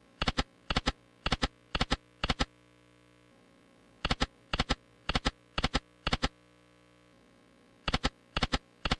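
Lightning Link Sahara Gold video slot game sounding its reel-stop clicks: one sharp, doubled click per reel, five in a row about half a second apart, as each of the five reels lands. This happens for three spins in a row; the third set starts near the end.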